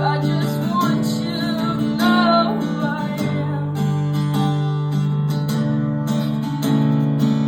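Acoustic guitar strummed in steady chords, with a voice singing a held, wavering line over the first three seconds before the guitar carries on alone.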